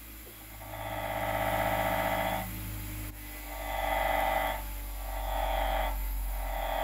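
Mastercraft MAXIMUM 6-inch variable-speed bench grinder running with a steady motor hum, while a piece of 2x4 wood is pressed against the wheel four times. Each contact gives a grinding sound lasting one to two seconds, the first the longest.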